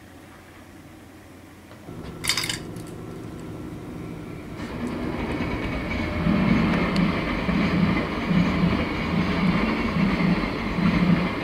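Electric-hauled freight train of container wagons approaching and passing: a rumble that grows from about four seconds in, then the steady run of the wagons with a rhythmic clatter of wheels over rail joints. A short sharp burst of sound about two seconds in.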